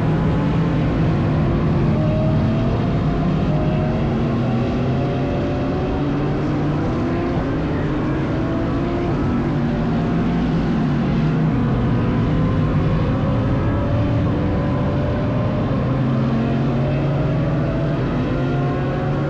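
Several GT race cars' engines running hard together, their pitch rising again and again as they accelerate through the gears, over a constant low rumble.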